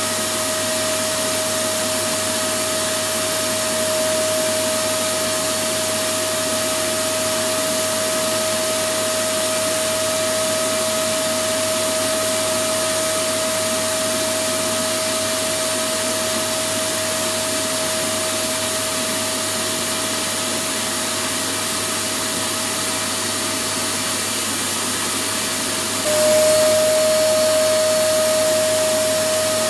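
Electric vacuum cleaner running steadily: an even rushing noise with a steady motor whine. About 26 seconds in it gets slightly louder and the whine drops a little in pitch.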